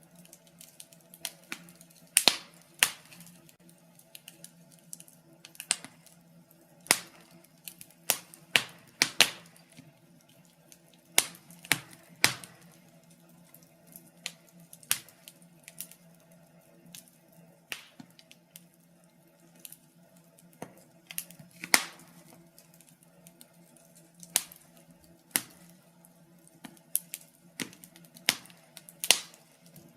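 Wood fire crackling in a fireplace: irregular sharp snaps and pops, some much louder than others, over a faint steady hum.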